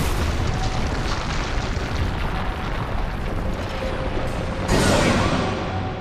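Rumbling, crashing sound effects of coffins rising out of the ground amid clouds of dust, with a louder burst nearly five seconds in, fading away toward the end.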